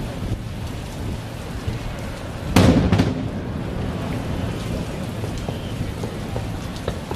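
Aerial firework shell bursting about two and a half seconds in: one deep boom, with a second, smaller report about half a second later, over a steady background hiss.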